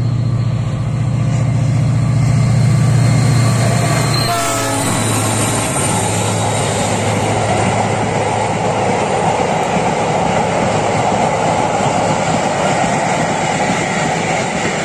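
Freight train of double-deck car-carrier wagons passing close by: a low locomotive drone, a short horn note about four seconds in, then the steady rolling noise of the wagons on the track.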